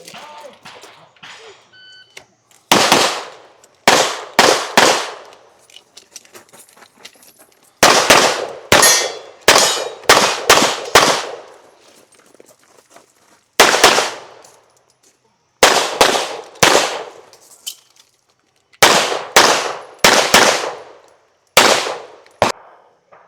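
A short electronic shot-timer beep about two seconds in, then a USPSA stage run of about two dozen pistol shots. They come in quick pairs and strings of three to five, with pauses of one to three seconds between groups as the shooter moves between positions, and each shot rings out briefly.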